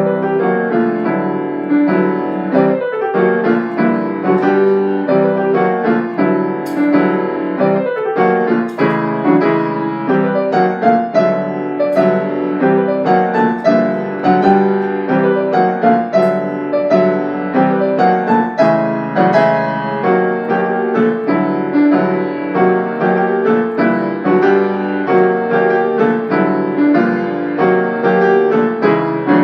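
Piano music: a piano playing a busy, continuous stream of notes and chords.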